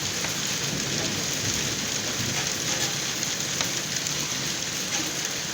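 Steady rain falling and pattering on a surface, with a few sharper drop ticks.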